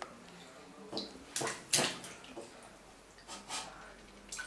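A toddler splashing water in a dog bowl: a handful of short splashes, the loudest pair about a second and a half in, with smaller ones near the end.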